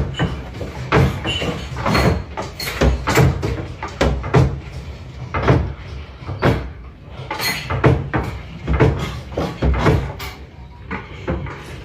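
A rapid, irregular series of loud knocks and bangs, a few a second, like doors and loose objects banging and rattling.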